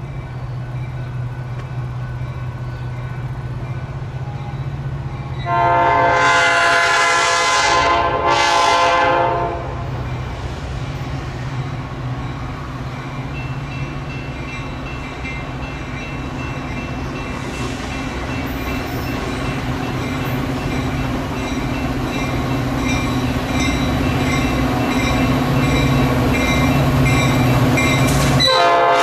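A train's multi-tone locomotive horn sounds a long blast about five seconds in, then a short one, over the steady rumble of the train. The rumble slowly grows louder and the horn sounds again near the end.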